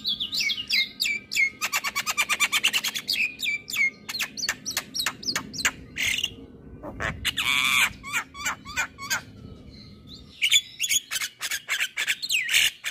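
Javan myna singing a varied, busy song: fast clicking rattles and falling whistles, a harsh squawk about seven seconds in, a short pause near ten seconds, then more whistles and calls.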